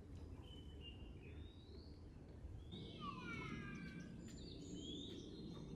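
Wild birds calling: a few short rising whistled notes, then about three seconds in a quick cascade of falling, mewing calls, over a steady low background rumble.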